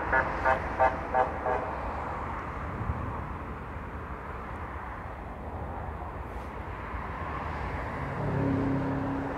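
Steady background road traffic noise, with a motor vehicle passing louder near the end. A quick run of five or six short pitched sounds comes in the first second and a half.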